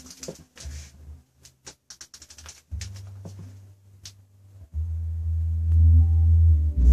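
8-inch Logitech subwoofer playing deep, held bass notes. They start about three seconds in and step up much louder about two seconds later. Before the bass comes in there are a few scattered sharp clicks.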